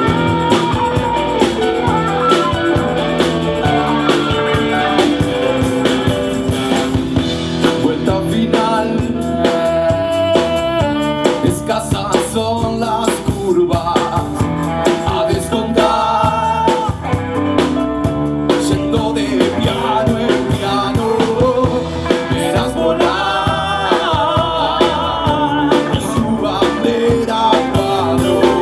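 Live blues band playing: electric guitars and drums with a saxophone and keyboard on stage, and a man singing lead into a microphone.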